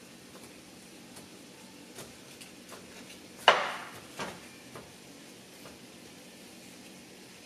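Wooden spatula stirring chopped onions and meat in a stainless steel skillet, with scattered light taps and scrapes against the pan. One sharp, loud knock comes about halfway through, followed by a smaller one.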